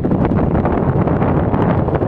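Wind buffeting the microphone: a loud, continuous low rumbling rush with irregular flutter.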